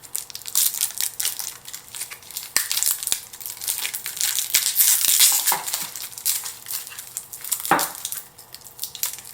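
Crinkling and rustling of packaging as the smart plug and its cord are handled, with dense irregular crackles and a few louder knocks.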